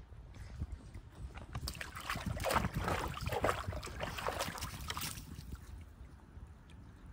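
A dog splashing and sloshing water in a tub of floating tennis balls, from about a second and a half in until about five seconds in, with wind rumbling on the microphone.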